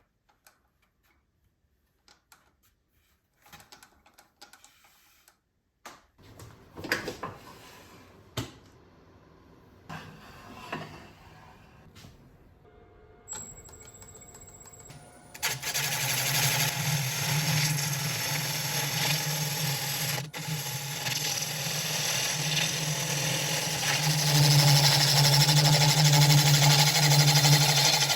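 A few scattered knocks and clicks, then about halfway through a wood lathe starts and runs steadily with a low hum. A wide noise over the hum gets louder near the end.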